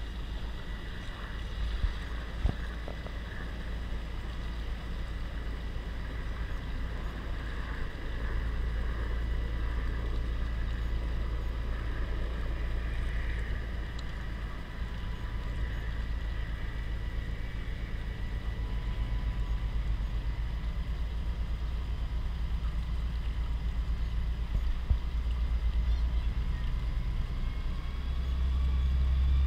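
Amphibious tour vehicle's engine running steadily as it moves through the water, a low drone with a faint steady whine above it, growing a little louder near the end.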